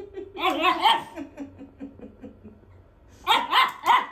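A woman laughing in quick repeated pulses while a small Maltese–Shih Tzu mix dog barks, in short bursts about half a second in and three sharp barks near the end.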